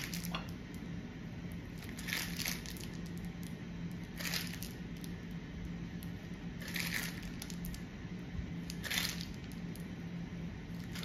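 Piping bag being squeezed to push stiff cookie dough through the nozzle into rosettes on a baking tray: five short squishes, about one every two seconds.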